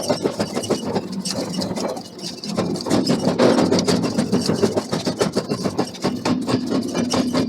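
Heavy forging machinery running with a steady low hum under rapid, irregular clattering knocks, easing briefly about two seconds in.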